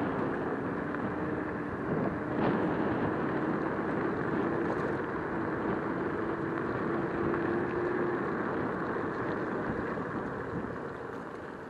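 Wind rushing over the microphone and tyre noise from a moving scooter, with a faint steady whine that rises slightly in pitch as it picks up speed. The noise dies down near the end.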